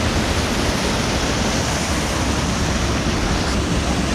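Steady rush of creek water spilling over a small waterfall.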